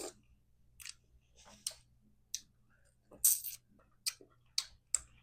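Close-miked eating sounds from a seafood meal of crab legs: a string of short, sharp wet clicks and smacks, roughly one every half second to second, the loudest a little past the middle. A faint steady low hum sits underneath.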